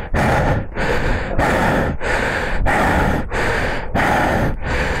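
A person panting hard, about eight loud, rapid breaths in a row, out of breath from straining to lift a heavy loaded motorcycle.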